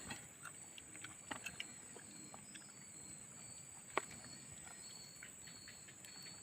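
Quiet eating sounds: scattered light clicks and taps of a meal being eaten, the sharpest about four seconds in, over a faint steady high-pitched whine.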